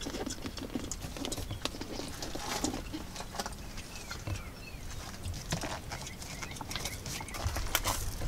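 Scattered light clicks and knocks of a BMW 5 Series' manual gear lever being moved about by hand.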